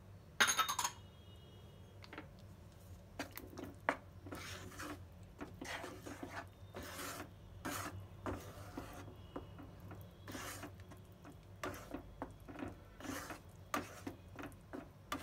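Wooden spatula stirring thick curry gravy in a non-stick pan: repeated scraping strokes against the pan, about one or two a second, over a low steady hum. A short clatter comes about half a second in.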